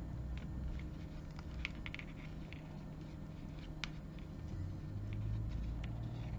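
Faint handling sounds of stiff 3 mm leather cord being threaded and pulled into a snake knot on a folding knife's lanyard: soft rubbing with scattered light clicks, over a low steady hum.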